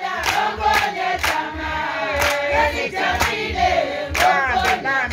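Traditional sangoma dance song: many voices singing together over a steady beat of about two strikes a second.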